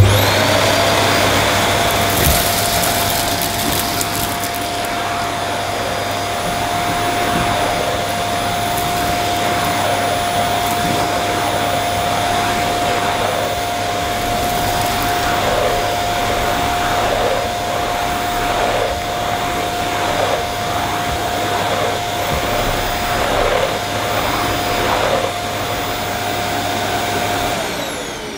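Vax Mojo II bagged cylinder vacuum cleaner starting up and running with a steady motor whine while its floor nozzle is pushed over carpet, sucking up grit and powder with crackling rattles. Near the end it is switched off and the whine falls as the motor winds down.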